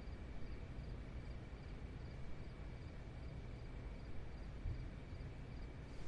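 Quiet night ambience: faint crickets chirping in an even rhythm, about three chirps a second, over a low steady background rumble.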